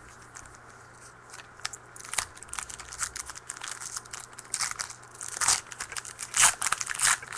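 Crinkling and tearing of a trading-card pack's wrapper as it is opened and the cards are handled. A dense run of short crackles starts about a second and a half in and grows louder near the end.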